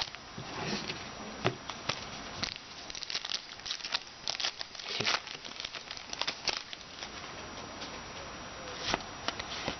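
Trading cards and foil card-pack wrappers being handled by hand: irregular crinkling and rustling with many short card flicks and clicks.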